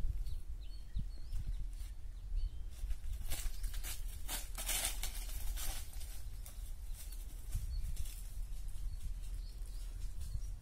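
Outdoor field ambience: a low rumble of wind on the microphone with a few faint bird chirps near the start, and about three seconds of dry rustling and crackling a few seconds in.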